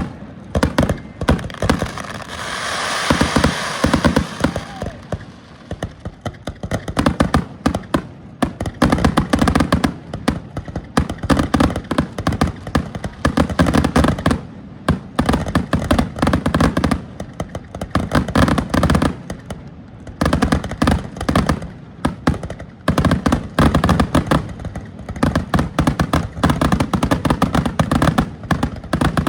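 Fireworks going off in a rapid, nearly continuous barrage of sharp bangs and crackles, with a loud hissing burst about two to four seconds in.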